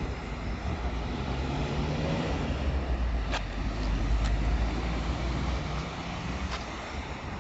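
City street traffic: cars and buses driving past with a steady low engine rumble that swells in the middle, with a few brief sharp clicks.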